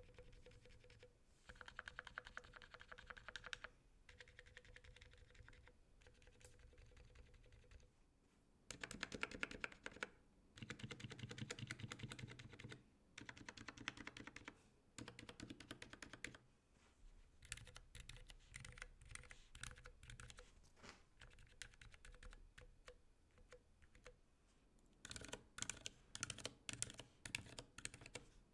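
Mechanical keyboard with Cherry MX Silent Black linear switches being tested, keys pressed in quick runs of soft, muted keystrokes. First the stabilized modifier keys are pressed over and over in short bursts; about two-thirds of the way in it moves to single keystrokes across the different rows.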